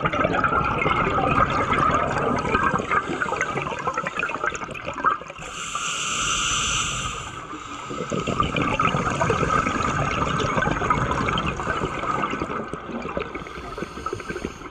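Scuba diver breathing through a regulator underwater: a continuous bubbling rumble of exhaled bubbles, broken about six seconds in by a hissing inhale through the regulator lasting about two seconds.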